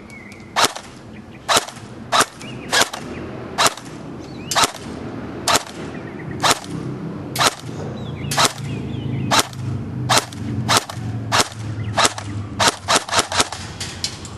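Dboys RK06WS AK74 airsoft electric gun firing single semi-auto shots, about twenty in all, spaced roughly a second apart and coming in quick succession near the end, during a 125-foot accuracy test.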